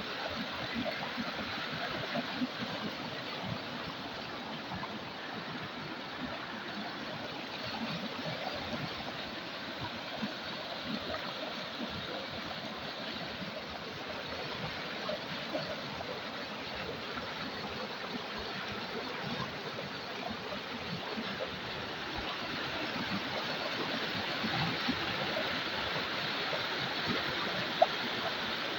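A river flowing, a steady rush of water that grows somewhat louder in the last several seconds.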